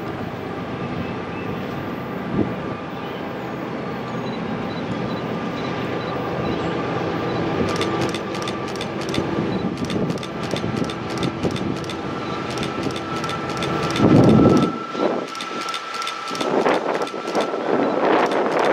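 Diesel locomotive, a GE Dash 9 with a 16-cylinder engine, running as it approaches from a distance: a steady drone that grows slowly louder. A brief low rumble about fourteen seconds in.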